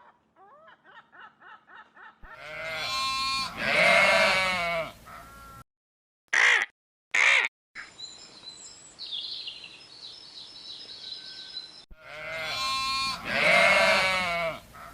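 Animal calls cut together: a quick run of short pitched cries, then loud, long wavering calls about two seconds in. After brief silent gaps come two short sharp sounds and a stretch of faint high chirping, then the loud wavering calls return near the end.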